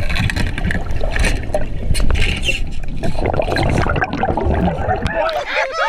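Dense, loud rumble of wind and water noise on the microphone, with scattered knocks and clicks. Near the end it cuts to quieter voices.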